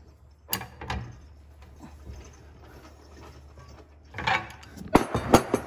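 Ratchet wrench backing off and retightening the threaded bushing on a 1961–66 Thunderbird upper control arm shaft. There is a sharp click about half a second in, then a scrape and a quick cluster of ratchet clicks and metal knocks near the end, over a low steady hum.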